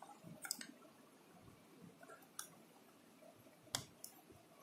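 A few short, light plastic clicks from a small Bluetooth speaker's casing being handled and pulled apart, the loudest about three and a half seconds in; near silence between them.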